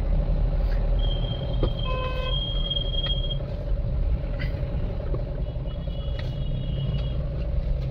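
Mahindra Bolero's diesel engine and road noise while driving, a steady low rumble. Thin high tones come in briefly about a second in and again past five seconds.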